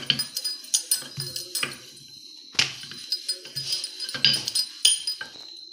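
Rolling pin rolling out a round of wheat-flour dough on a flat board: an uneven series of soft knocks and light clicks, about two a second, as the pin is pushed back and forth.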